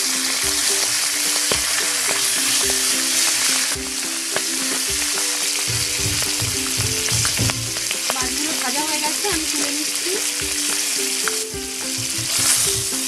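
Pomfret pieces frying in hot oil in a non-stick wok, sizzling steadily, with a few clicks of a metal spatula against the pan as the fish is turned.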